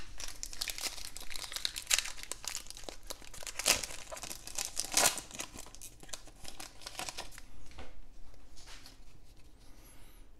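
A Donruss football card pack's foil wrapper being torn open and crinkled in the hands: a dense run of crinkling that thins out after about seven and a half seconds.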